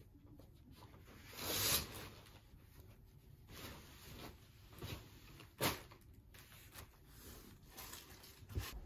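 Bedding and cloth rustling in a quiet room, with a louder swish about a second and a half in and a sharp tap a little past halfway.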